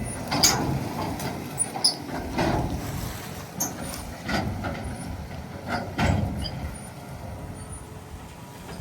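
A series of irregular knocks and clanks over a low rumble that fades away.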